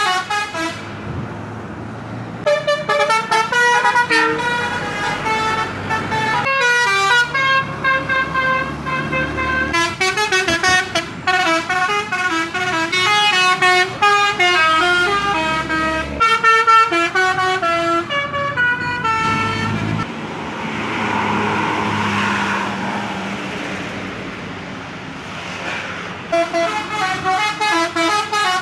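Bus "telolet" horns: multi-tone air horns play quick melodies of short notes that step up and down in pitch, tune after tune. Between about twenty and twenty-six seconds in, the horns give way to a rush of engine and road noise, and the horn notes start again near the end.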